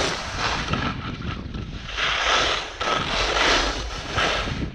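Skis scraping and hissing over wind-crusted snow, in surges that come and go with each turn, over a steady low rumble of wind buffeting the microphone.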